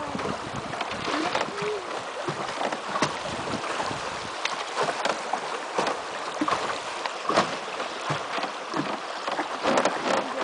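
Fast, shallow river water rushing past and splashing against the hulls of a wooden raft as it drifts downstream, a steady gurgling wash broken by many small irregular splashes.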